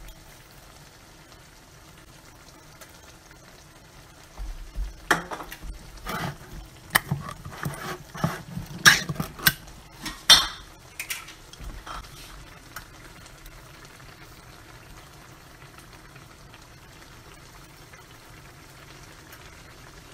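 A run of sharp clinks and clatters of kitchenware at the skillet for several seconds, then just the faint steady sizzle of the ground-beef mixture cooking in the pan.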